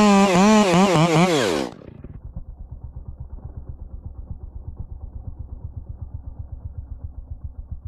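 Two-stroke chainsaw running at full throttle, its pitch wavering slightly. The throttle is released a little under two seconds in, and the engine drops to a low, pulsing idle.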